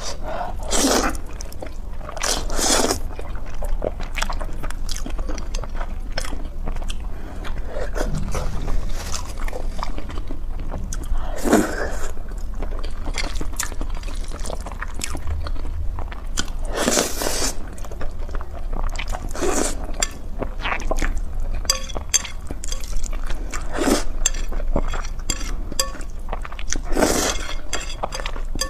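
Close-miked mouth sounds of noodles being eaten: wet chewing with small clicks, broken every few seconds by a loud slurp as strands are sucked in.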